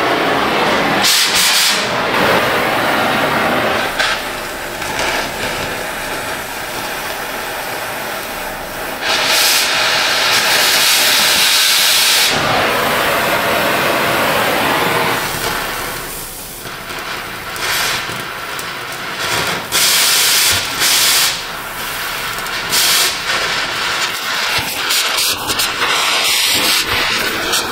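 Gas cutting torch hissing steadily as it cuts through a rusted exhaust pipe, the hiss swelling louder in stretches of a few seconds.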